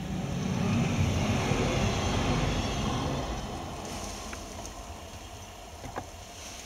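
Double-deck electric passenger train passing: a low rumble of wheels on the rails that swells within the first second, holds for about two seconds, then fades away by about four seconds in.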